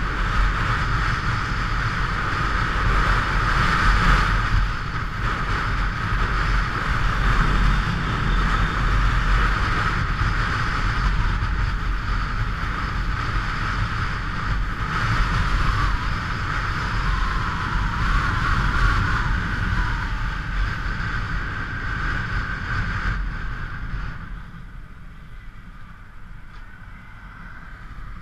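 Motorcycle riding along, with wind rushing over the microphone and the engine running beneath it; the sound drops off noticeably about 24 seconds in.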